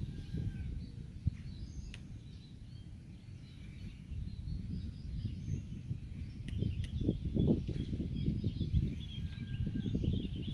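Low, uneven outdoor rumble, with birds chirping in the background, the chirps busier in the second half.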